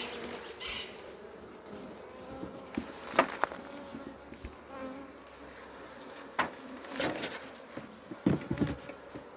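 Honey bees buzzing around a hive, a steady hum, with a few sharp knocks and clicks.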